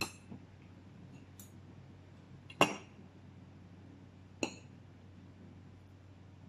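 Knife and fork clinking against a plate while cutting cake: a few sharp clinks, the loudest about two and a half seconds in, with fainter ticks between.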